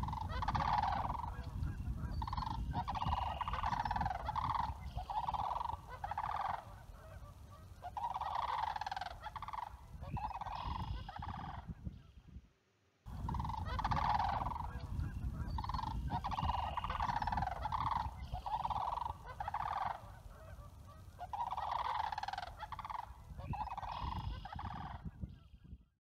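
A flock of geese honking, many calls overlapping in bursts over a low rumble. The same stretch of calls plays twice, with a brief gap about halfway through.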